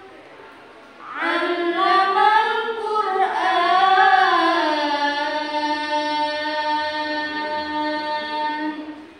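A girl's voice reciting the Quran in melodic chant: one voice winding through an ornamented phrase from about a second in, then holding one long steady note that stops just before the end.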